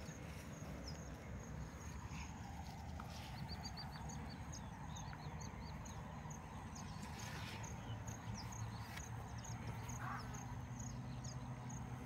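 Faint outdoor ambience: small birds chirping over and over, over a soft low rustle of steps through grass. A faint steady low hum comes in about two-thirds of the way through.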